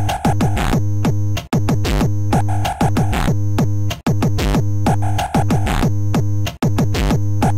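Electronic synthesizer music from a 64k intro soundtrack: a steady synth bass under a drum-machine beat, with falling synth glides. It cuts out sharply for an instant about every two and a half seconds.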